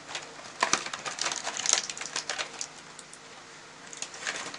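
Crinkling and crackling of a clear plastic blister tray and cardboard box as a laptop cleaning kit is unpacked: a dense run of crackles for about two seconds, then a short burst near the end.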